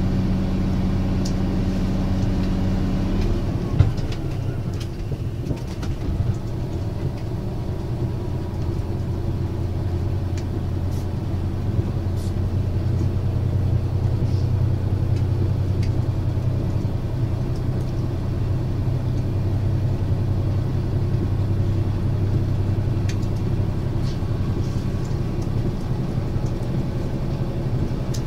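Running sound inside JR Hokkaido's KiHa 182-501 diesel railcar, whose DML30HSJ V12 diesel engine runs steadily under a continuous rumble of the train in motion. About three seconds in, the engine note changes with a click, and its lower note then grows stronger in the middle of the stretch.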